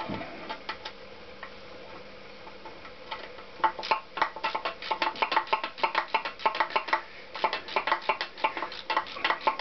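Small metallic clicks and rattles as connecting-rod cap nuts are run onto their bolts inside a Honda CX500 crankcase. A few sparse ticks at first, then a quick, steady run of clicks from about four seconds in.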